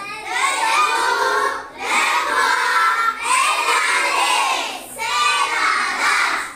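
A class of young children reading aloud in unison, in four drawn-out, sing-song phrases with short breaks between them.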